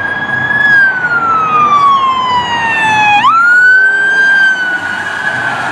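Police car siren wailing: the tone slides slowly down, then sweeps sharply back up about three seconds in and holds high.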